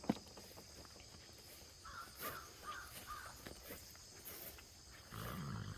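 A run of short, harsh, caw-like bird calls, about two to three and a half seconds in, with a soft click at the start and a brief low-pitched sound near the end that is the loudest moment.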